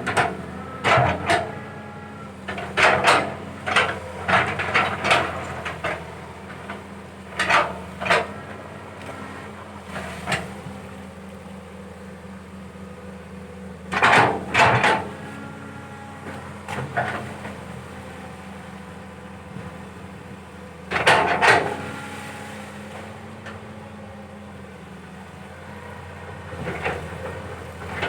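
Caterpillar 320 hydraulic excavator's diesel engine running steadily while it digs, with repeated groups of metallic clanks and knocks from the bucket and arm working.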